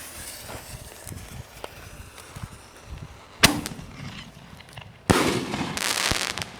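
Consumer fireworks going off: a few small crackles, one sharp bang about three and a half seconds in, then a loud hissing rush lasting about a second and a half from about five seconds in.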